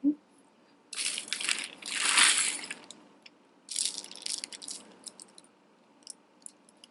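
Costume jewelry rattling and clinking as it is handled: beads and chains jingling in two main bursts with scattered clicks between, after a short knock at the start.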